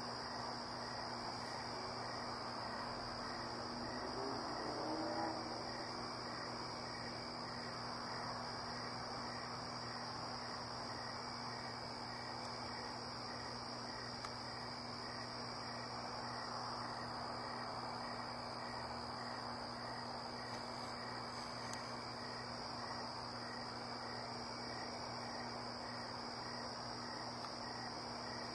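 Night insects, crickets, singing steadily in one continuous high trill, with a fainter regular chirp beneath it and a steady low hum. A brief rising whine comes about five seconds in.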